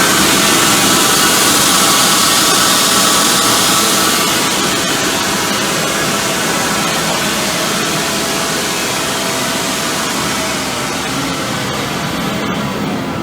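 CompAir L45SR variable-speed rotary screw air compressor running under full load, with compressed air rushing out of an open discharge pipe in a loud, steady hiss. The level eases slightly about four seconds in, and the high hiss thins out near the end.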